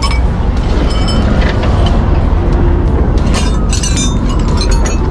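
Heavy vehicle running: a steady low rumble of engine and road noise, with a cluster of metallic rattles and clicks in the second half.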